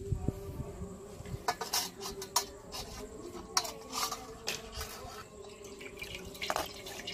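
Spiced green pani dripping and trickling through a steel strainer into a steel bowl, with scattered small clicks and taps of the metal.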